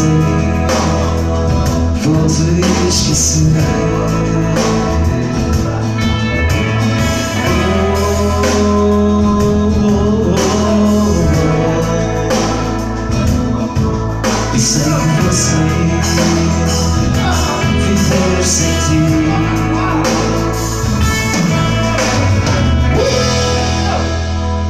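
A man singing a ballad into a microphone, amplified over an instrumental backing with a steady bass line.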